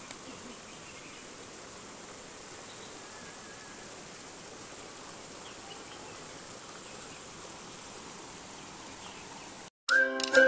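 Steady, high-pitched insect chorus outdoors, with no other events. Near the end it cuts off abruptly and upbeat music starts.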